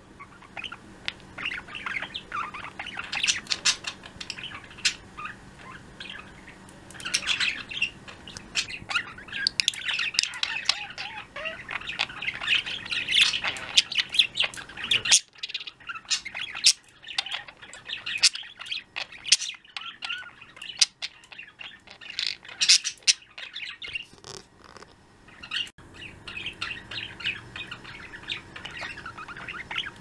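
Pet budgerigars (parakeets) chirping and trilling, a busy run of chatter mixed with sharp squawks. About halfway through it thins to scattered chirps and clicks, then picks up again near the end.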